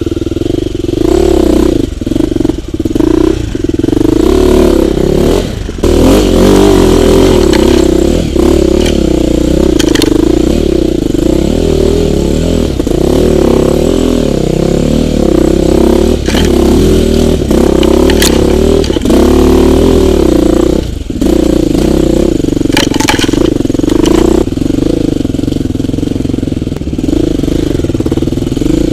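Enduro dirt bike engine revving hard and unevenly under load, the throttle opening and closing constantly, with brief drops in revs twice and a few sharp knocks.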